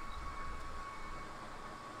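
A steady hiss with a faint, steady high whine; a low rumble comes in briefly during the first second.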